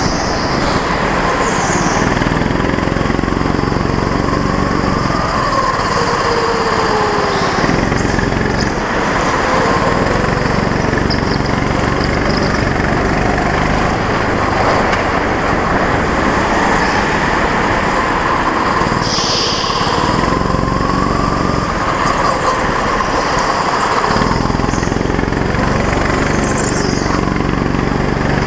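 Go-kart engine running close by, the engine note dropping away for a few seconds at a time as the kart slows for corners and coming back as it picks up speed. Short high squeals come in twice near the end.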